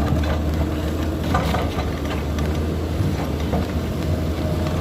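Heavy diesel machinery engine running steadily, a low even drone under wind noise.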